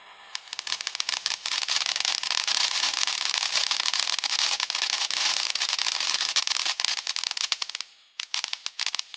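Brothers Whale of a Tale fountain-aerial hybrid firework crackling: a dense, continuous mass of crackle pops for about eight seconds, thinning to scattered pops near the end before cutting off.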